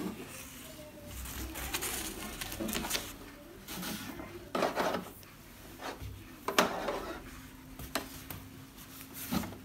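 Plastic knocks and scrapes of a flat-screen LED TV being handled and turned over on a work surface: a string of sharp clacks and rubbing sounds, about one every second or so.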